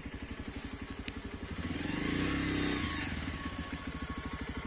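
Motorcycle engine passing by with a fast, even putter, growing louder to a peak about halfway through and then fading.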